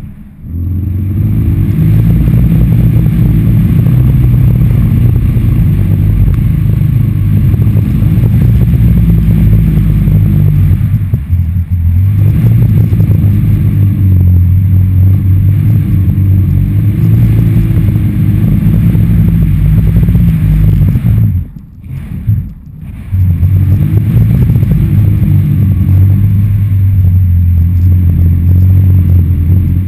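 Wind buffeting an action camera hung on stunt-kite lines, with a loud low drone from the taut lines that shifts in pitch now and then. The sound drops out briefly twice about two-thirds of the way through.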